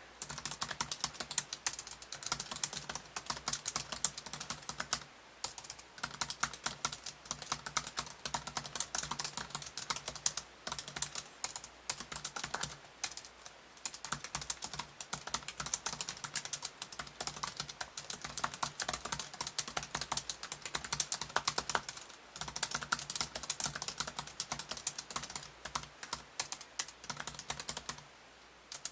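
Fast continuous typing on a Samsung Series 9 NT900X3B laptop keyboard: rapid key clicks with a few short pauses.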